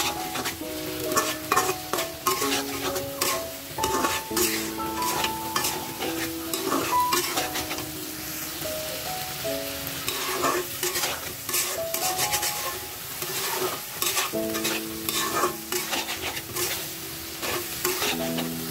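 Metal spatula scraping and clacking against a metal pan while a chicken and potato curry is stirred, the food sizzling steadily as it fries. A soft background melody plays underneath.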